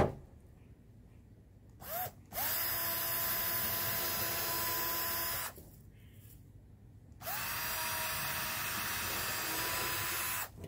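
Cordless drill boring two holes through the wooden side bar of a beehive frame. After a brief blip of the trigger about two seconds in, the motor twice winds up in pitch, runs steadily for about three seconds and stops.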